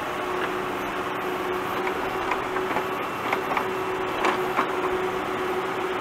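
Tractor digging: its engine runs steadily under a constant pitched hum, and in the middle comes a run of sharp knocks and clinks as the bucket works.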